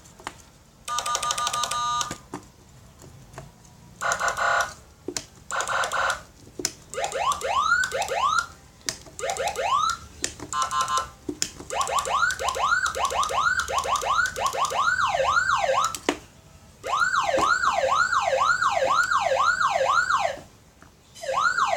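Electronic 12-sound siren module, 15 W, sounding through its loudspeaker and switched between its tones. It plays short bursts of a steady buzzing alarm tone, then repeated rising whoops, then a fast up-and-down wail about three times a second, with brief pauses between the patterns.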